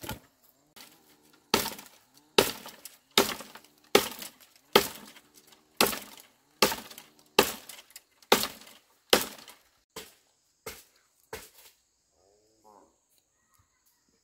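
Machete chopping wood, about fourteen steady blows roughly one every 0.8 seconds, each with a short ringing tail; the blows grow quieter and stop near the end, leaving a faint high insect drone.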